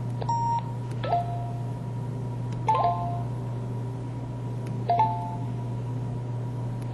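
Samsung SCH-V420 mobile phone playing short electronic effect tones: four brief chime-like beeps, each opening with a click, spaced a second or two apart. A steady low hum lies underneath.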